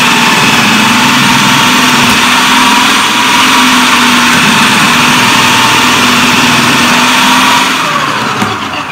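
Idealife IL-222 food processor's 800 W motor running steadily and loud while chayote is pushed through the feed tube onto a coarse shredding disc. Near the end it is switched off and winds down, falling in pitch.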